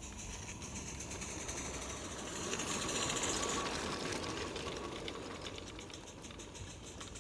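Scratch-built 3½-inch gauge live steam model of an O&K Feldbahn locomotive running past with a fast, even chuffing. The chuffing swells to its loudest about three seconds in, as the loco draws level, then fades as it runs away.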